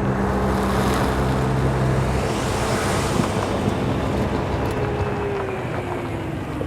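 Traffic noise: a vehicle engine hums steadily under road noise, the hum dropping away about two seconds in, and a tone slides down in pitch near the end as something passes.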